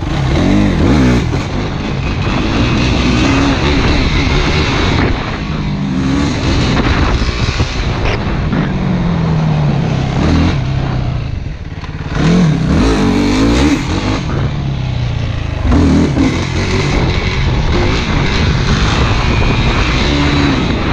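Yamaha YFZ450 quad's single-cylinder four-stroke engine being ridden hard, revving up and down with its pitch climbing and falling again and again, and a brief let-off about eleven seconds in.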